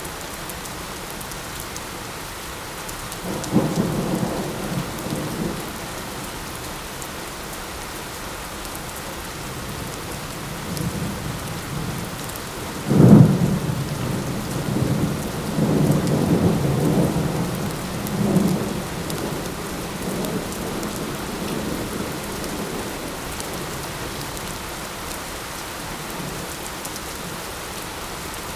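Steady light rain with thunder. A low rumble swells about three seconds in. Near the middle a louder, sharper crack, the loudest moment, rolls on in low rumbles for several seconds before fading back to the rain.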